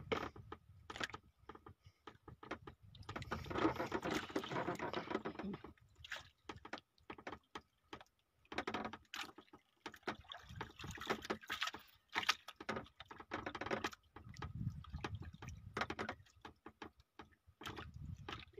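Irregular knocks and clicks on a small boat at sea, with stretches of rushing, splashy water noise.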